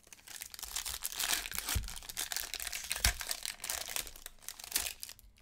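Silver foil wrapper of a Topps baseball card pack being torn open and crinkled by hand, a continuous crackling with a couple of low knocks in the middle.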